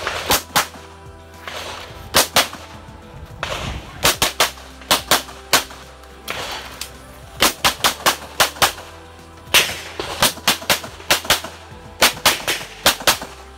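Handgun shots fired in rapid pairs and quick strings during a practical-shooting stage, with short gaps between groups.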